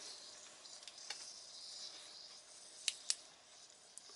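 Faint steady hiss and a few small sharp clicks from an opened Moulinex Cook4me pressure multicooker, with its steam release valve still closed: one click about a second in and a quick pair near three seconds.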